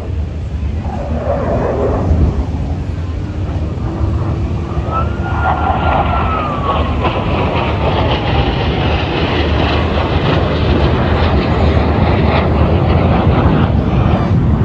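Jet aircraft passing, a rushing engine noise that builds through the second half over a steady low rumble, with a whining tone that falls in pitch midway.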